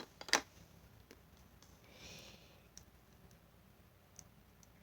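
A sharp click just after the start, a soft rustle about two seconds in, and a few faint ticks: light handling noise from small objects on a tabletop.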